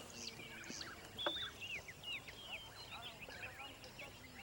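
A chorus of wild birds: many short, overlapping chirps and whistled calls, with one sharper call a little over a second in standing out as the loudest.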